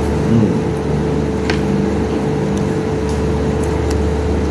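A steady low mechanical hum with a constant tone running through it, and one faint click about one and a half seconds in.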